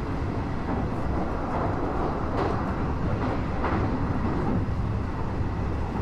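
Cabin sound of a Nishitetsu Tenjin Ōmuta Line limited express train under way: a steady low rumble of the running train, with two brief louder rattles a few seconds in.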